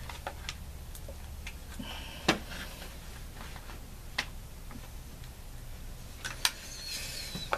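A handful of sharp metallic clicks and light knocks as a Winchester Wildcat .22 rifle is handled and its takedown button is pressed with an improvised tool; the loudest click comes a little over two seconds in.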